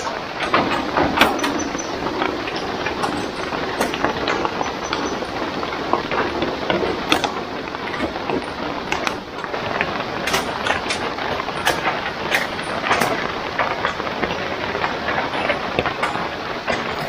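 Light rain falling: a steady hiss with many irregular drops tapping and dripping.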